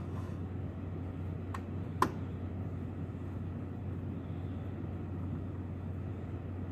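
A screwdriver working a small screw out of a computer module's case: two short clicks about one and a half and two seconds in, over a steady low hum.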